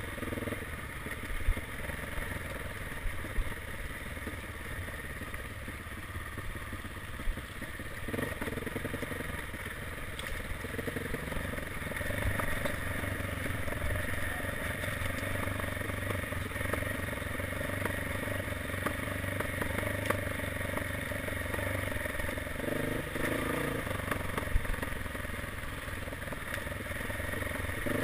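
Dirt bike engine running as the bike rides a rough forest track, the throttle opening up a few times. Occasional sharp knocks and rattles come from the bike over the bumpy ground.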